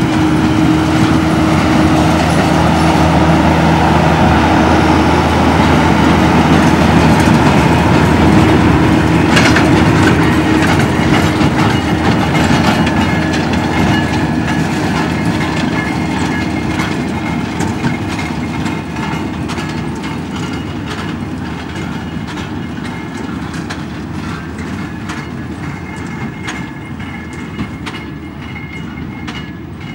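Fendt 818 tractor's diesel engine pulling a Claas Quadrant 2200 large square baler at work: a steady engine drone with repeated short knocks from the baler. It is loudest in the first ten seconds as the rig passes close, then fades steadily as it drives away.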